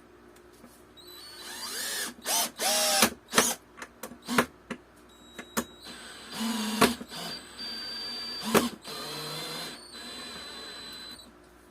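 Power drill driving screws into plywood in several short runs, the motor spinning up with a rising whine, with sharp clicks between runs.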